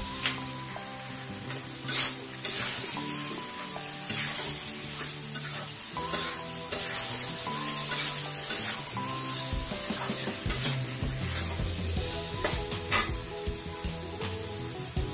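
Vegetable curry sizzling as it fries in a pan while it is stirred, the spoon scraping and knocking against the pan, loudest about two seconds in and again near the end. Background music with held notes plays underneath.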